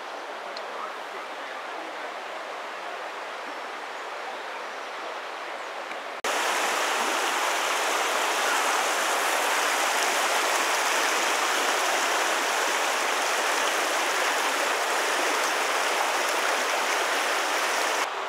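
The Ybbs river rushing steadily over a shallow, stony bed, coming in abruptly about six seconds in and holding loud and even until it cuts off just before the end. Before it, a fainter steady outdoor hiss.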